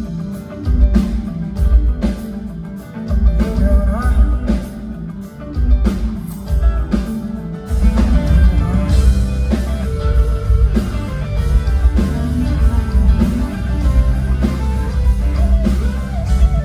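Live band playing an instrumental passage of a rock song: guitar over bass and drums, the sound growing fuller about eight seconds in.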